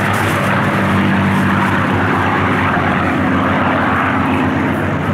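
Several piston-engined WWII fighters, Spitfires and Messerschmitts, flying overhead together: a steady engine and propeller drone that holds level throughout.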